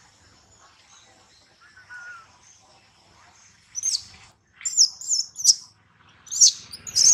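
Baby macaque crying: a run of short, high-pitched calls, each rising and falling in pitch, starting about four seconds in and coming thicker near the end. Before them only a faint, steady high-pitched hum.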